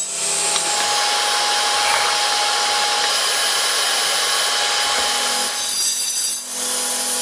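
Table saw running and taking a thin shaving off the end of an aluminium C-beam extrusion, a steady cutting noise with a brief dip about six and a half seconds in.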